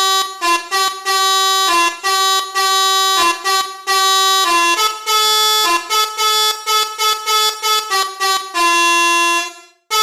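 Telolet multi-tone bus air horn playing a tune: a run of short and held notes, several tones sounding together, breaking off briefly near the end.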